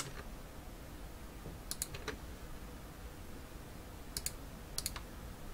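Computer mouse clicking a few times, several clicks in quick pairs, while line points are placed in a CAD sketch. There is faint room tone between the clicks.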